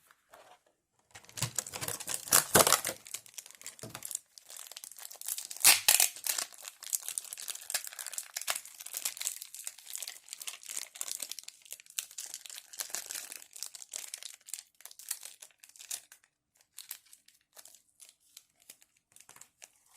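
Plastic figure packaging crinkling and rustling as it is handled and pulled open, in irregular crackles with a couple of louder rips a few seconds in.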